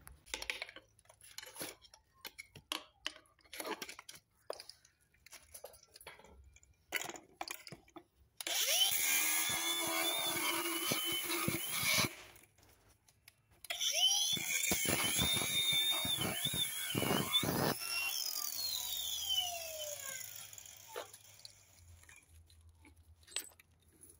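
Angle grinder cutting through a bolt in a steel post bracket, in two runs of about four seconds each with a short pause between. After the second cut the disc winds down with a falling whine. Before the cutting there are scattered light knocks and taps.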